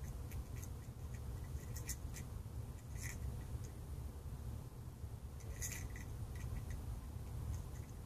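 A gull's bill pecking and knocking at a mussel shell on the dock: scattered light, sharp clicks and taps, some in quick little clusters, the loudest about three seconds in and again near six seconds, over a low steady rumble.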